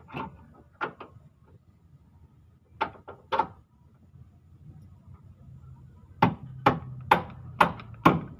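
Sharp knocks of hand tools working on the car's suspension underneath. A few scattered knocks come first, then a run of five evenly spaced knocks, about two a second, near the end.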